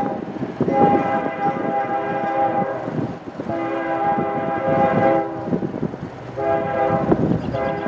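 Locomotive air horn sounding a chord of several notes in long blasts about two seconds each with short gaps: two blasts and a third that is still sounding at the end. The noise of the train runs underneath.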